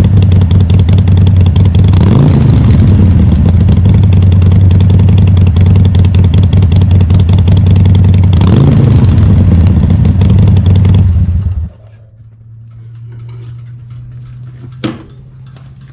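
Harley-Davidson XL1200CX Roadster's 1200 cc V-twin idling loudly through Bassani Firepower fluted slip-on mufflers, with two quick throttle blips about 2 and 8.5 seconds in. The engine cuts off just before 12 seconds, leaving a low steady hum and a single sharp knock near the end.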